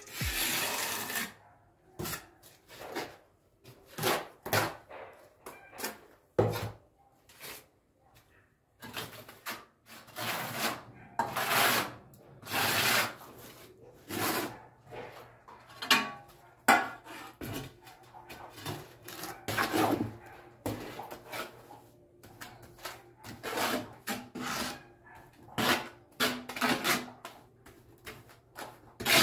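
Steel trowel scraping and spreading C2 cement tile adhesive: repeated scraping strokes of varying length as mortar is combed onto a brick wall and spread over the back of a ceramic tile.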